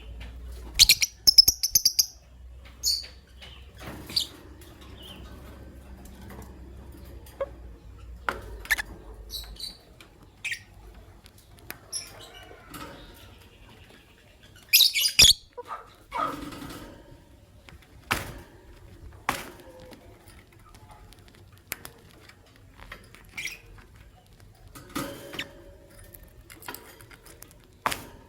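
Lovebirds giving short, sharp, high-pitched chirps in scattered bursts, loudest just after the start and again about halfway through, with brief clicks between the calls.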